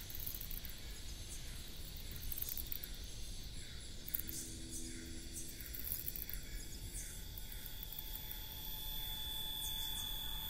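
Tropical rainforest insect chorus: repeated short high chirps and a run of quick falling chirps, with steady high-pitched whining tones joining about eight seconds in.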